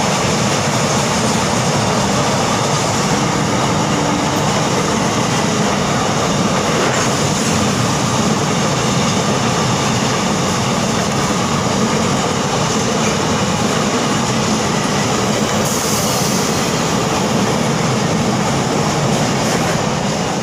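Indian Railways express passenger coaches rolling past close alongside a station platform: a loud, steady noise of steel wheels running on the rails as the train pulls in.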